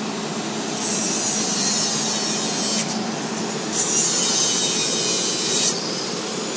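Work on a steel pipe joint: harsh hissing scrapes in about two-second bursts, three times, over a steady machine hum.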